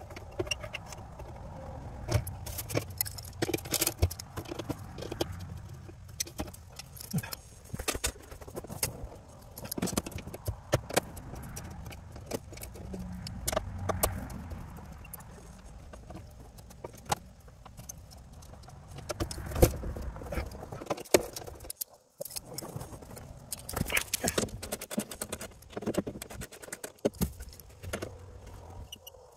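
Hand tools working the bolts of a UTV skid plate: irregular metallic clicks and clinks in scattered bursts.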